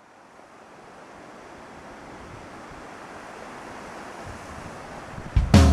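Ocean surf, a steady wash of waves fading in and growing louder. Music starts suddenly and loudly near the end.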